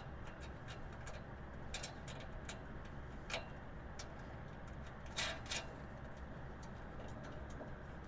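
Scattered light clicks and taps of tool cart parts and hardware being handled during assembly, with a small cluster about five seconds in, over a low steady hum.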